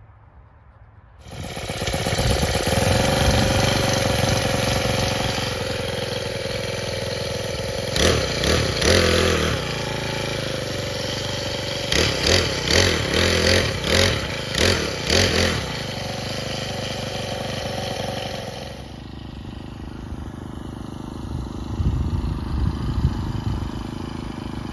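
Small gas-powered rototiller (mini cultivator) engine that comes on suddenly about a second in and runs loud, surging up and down several times as it works between the garden rows. Near the end the engine sound falls away to a lower, rougher background.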